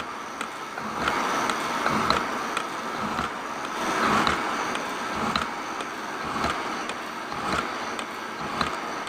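Metal shaper running, its ram stroking back and forth with a knock about once a second and the tool scraping across the workpiece on each stroke.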